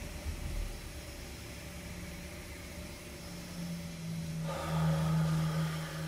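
Low, steady mechanical hum over faint room hiss. It swells louder about four seconds in, then cuts off just after the end.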